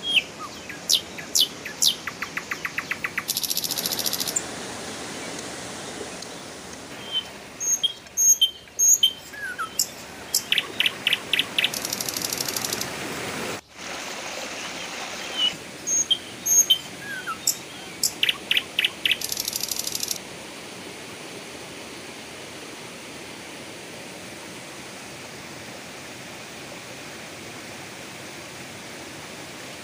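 Birds chirping, with short high calls, clicks and several rapid trills over a steady hiss; the birdsong stops about two-thirds of the way in, leaving only the hiss.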